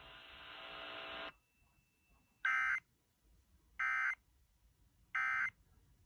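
Weather radio receiver hiss that cuts off after about a second, then three short bursts of EAS SAME digital data tones about a second and a half apart: the end-of-message code closing a tornado warning broadcast.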